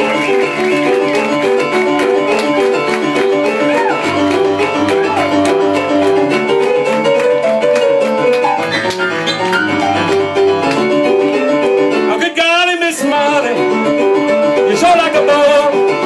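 Rock'n'roll piano played hard and fast on a digital stage piano, with rapid repeated chords and a busy bass line. A short wavering vocal cry comes about twelve seconds in.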